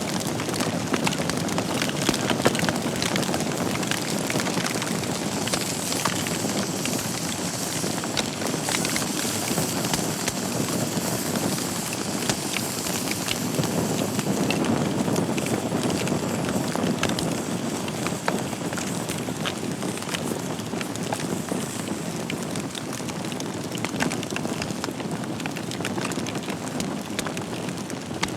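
Wood fire burning in a fireplace: a steady hiss and rush of flames with many small, sharp crackles and pops from the burning logs.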